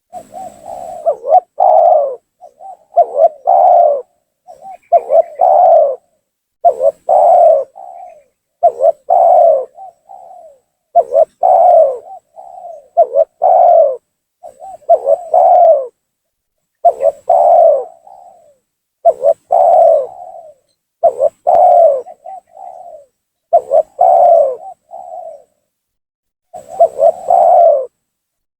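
Spotted dove (tekukur) cooing in repeated phrases, about one every two seconds. Each phrase is a few softer notes leading into a loud coo. It is a strong-voiced 'gacor' lure call meant to provoke rival doves to come down.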